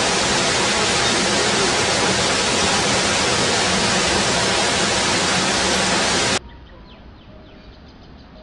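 Loud, steady hissing rush of noise with no clear pitch or rhythm. It cuts off suddenly about six seconds in, leaving only faint background sound with a few soft ticks.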